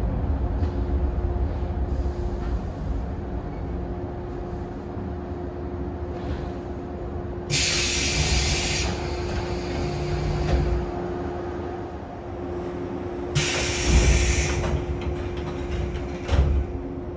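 JNR 113 series electric train, a steady low rumble and hum, with two bursts of hissing air, about seven seconds in and again about thirteen seconds in.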